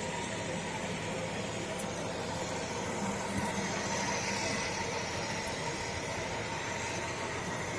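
Steady background noise with a faint constant hum, swelling slightly near the middle, of the kind distant road traffic makes.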